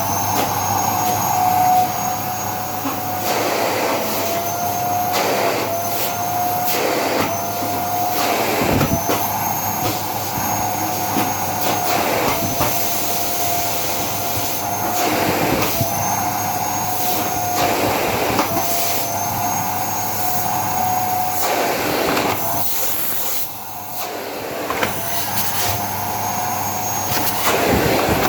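Philips 7000 series vacuum cleaner running continuously: a steady motor whine that wavers slightly in pitch, with repeated short swishes of air and a brief dip in loudness about 23 seconds in.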